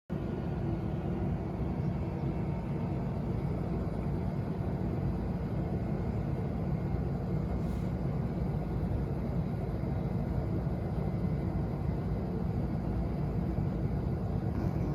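Long-coat Chihuahua snoring in its sleep, a steady low rumbling snore.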